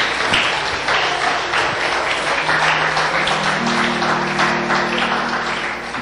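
Congregation applauding, with soft, sustained low instrumental notes joining in about halfway through.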